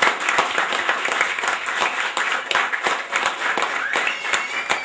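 Audience applauding: many hands clapping, dense and steady, with voices calling out over the clapping.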